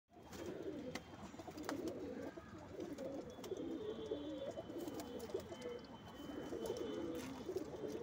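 Domestic pigeons cooing in a wire-mesh loft: continuous low, wavering coos that overlap one another, with a few light clicks among them.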